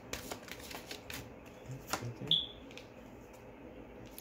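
Tarot deck being shuffled by hand: a quick run of card clicks for about a second, then a few sharper taps, the loudest about two seconds in, followed by a short high chirp.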